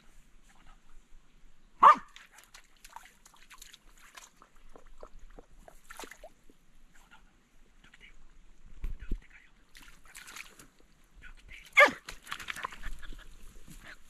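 Red spitz-type tree-barking bird dog giving two loud single barks about ten seconds apart, baying a capercaillie it has found.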